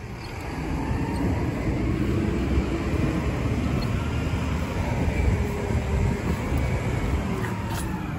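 Diesel engine of a Mack garbage truck running with a steady low rumble.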